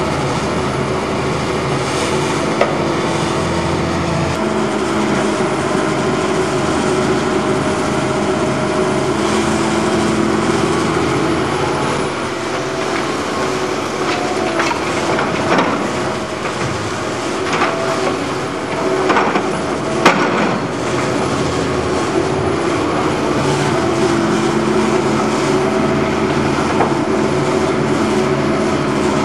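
Diesel engines of hydraulic tracked excavators running steadily. Midway comes a run of clanks and knocks as a bucket digs into a pile of rubbish and soil, the sharpest one just past the middle.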